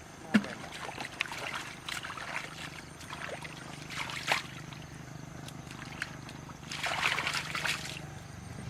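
Water trickling and splashing in scattered bursts, with a louder splash near the end, over a faint steady low hum.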